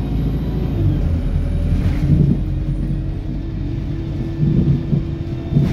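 Road vehicle driving, heard from inside the cabin: a steady low rumble of engine and tyres with a constant hum, and a few brief low bumps.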